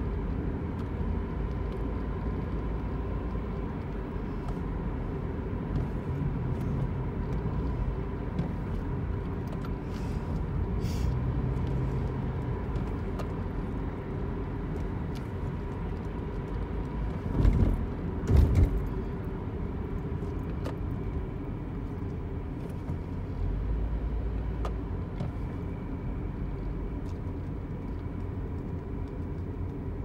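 Car cabin noise while driving: a steady low road and engine rumble with a faint, constant whine running through it. Two louder thumps come close together a little past the middle.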